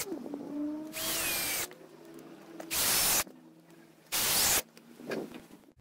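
Power drill driving screws through the metal castor brackets into a pine plank, in three short bursts about a second and a half apart, with a quieter whine between them.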